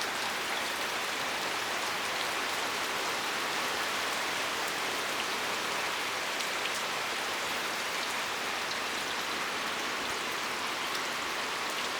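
Steady thunderstorm rain falling, an even hiss with a few faint drop ticks.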